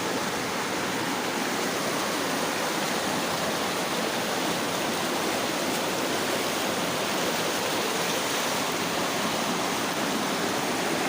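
Steady, even rush of water, typical of flash-flood runoff or torrential rain, starting abruptly and holding at a constant level throughout.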